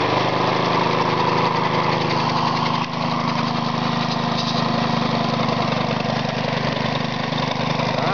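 Briggs & Stratton lawnmower engine running at a steady speed just after starting, driving a homemade air compressor.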